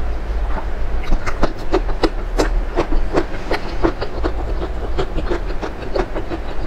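Close-miked eating: wet mouth clicks and smacks of chewing and slurping saucy noodles, several a second at an uneven pace, over a low steady hum.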